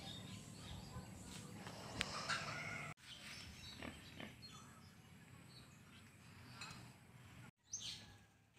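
Faint outdoor background with occasional short animal calls, breaking off abruptly twice.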